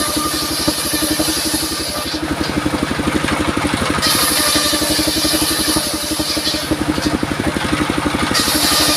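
Engine-driven circular saw rig: the engine runs steadily with an even low pulse, and the blade cuts wood in stretches of two to three seconds, the high hiss of the cut coming in near the start, again about four seconds in and near the end.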